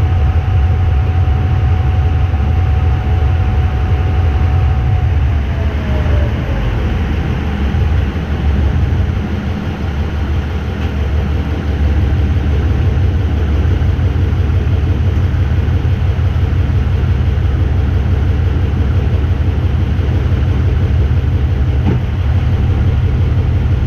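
GE diesel-electric locomotive's engine running with a steady, heavy low rumble. A steady whine over it falls in pitch about five seconds in and fades, and the rumble eases briefly soon after before settling again.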